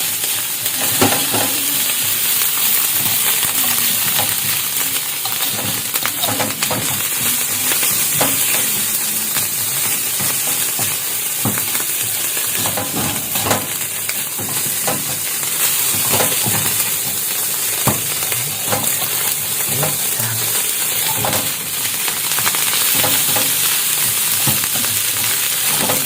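Corned beef fried rice sizzling steadily in a hot pan as it finishes cooking, stirred, with scattered short scrapes and taps of the utensil against the pan.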